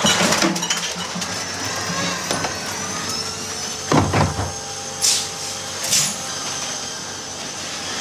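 The electric drive of a Heil sideloader's automated arm whines as it brings an emptied recycling cart down from the hopper. There is a short clatter at the start. The cart lands with a heavy thump about four seconds in, and two sharp clanks follow about a second apart.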